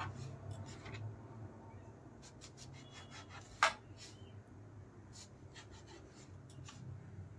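Knife cutting the crusts off a slice of white sandwich bread on a plastic cutting board: faint scraping strokes, with one sharper click about three and a half seconds in, over a low steady hum.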